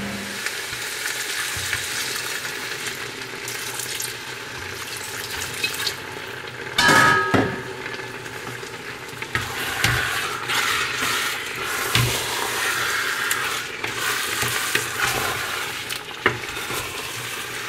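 Floured beef chunks and onions sizzling in a stainless steel pot while a wooden spatula stirs and scrapes them, with a louder stretch about seven seconds in.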